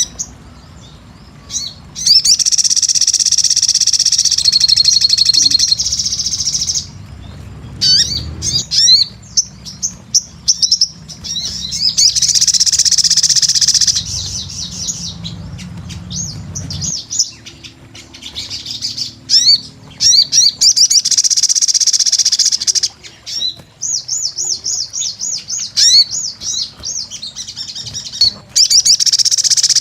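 Crimson sunbird (sogon) singing in loud, high-pitched twittering phrases of a few seconds each, with short gaps, some of them fast rippling trills.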